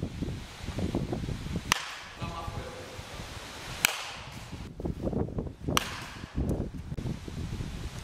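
Baseball bat striking pitched balls in batting practice: three sharp cracks about two seconds apart.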